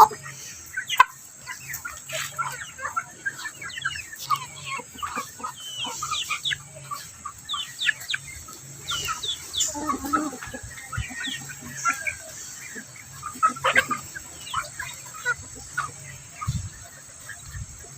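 Chickens clucking, with many short overlapping calls from the flock.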